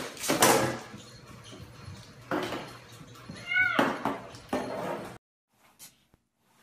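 A cat with a container stuck over its head thrashing against a wall, making several noisy bumps and scuffles, with one short meow about three and a half seconds in. The sound stops abruptly about five seconds in.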